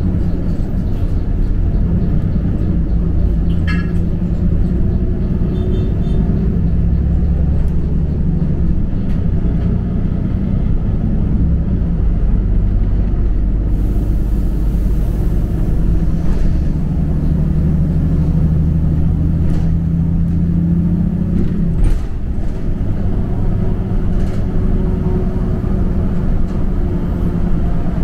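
Steady low rumble of a TransJakarta bus in motion, heard from inside the cabin, its engine hum rising and falling in pitch with speed.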